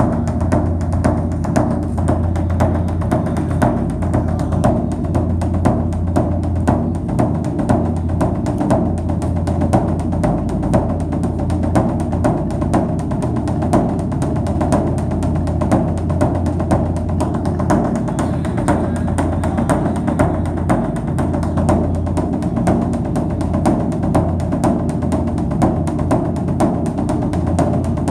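Background music led by steady, rapid drumming, low drums over a constant bass drone.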